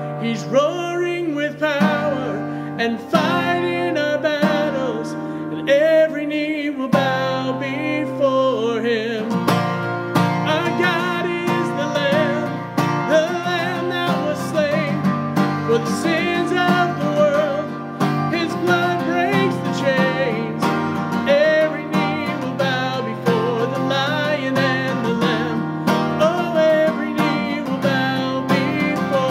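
A man singing a worship song and accompanying himself on an acoustic guitar. The guitar chords ring out at first, and the strumming becomes busier about ten seconds in.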